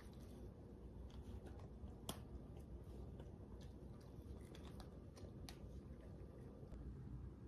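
Faint, scattered crunches and clicks of a dog chewing and pulling at torn cardboard from a LEGO box, with one sharper click about two seconds in.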